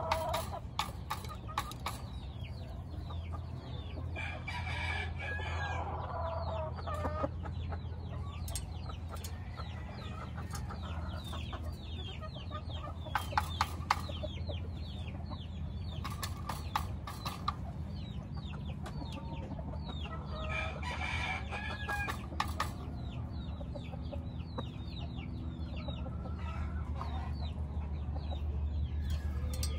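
Gamecock roosters crowing, twice (about four seconds in and again about twenty seconds in), among clucking and many short chirps. Sharp taps come in clusters, fitting a rooster pecking at a plastic feed cup. A steady low hum runs underneath.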